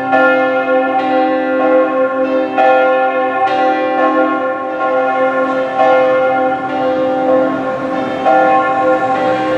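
Church bells ringing in a stone bell tower, a fresh strike about once a second with each tone ringing on into the next.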